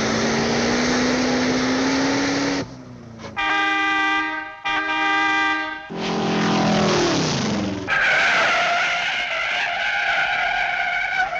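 A run of cartoon car sound effects: an engine note rising slowly in pitch, two long horn honks, a falling glide, then a long tire screech.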